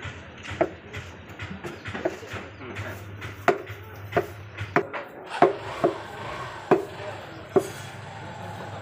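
A butcher's knife chopping on a wooden block: a string of sharp, irregular knocks, up to about two a second, over a steady low hum.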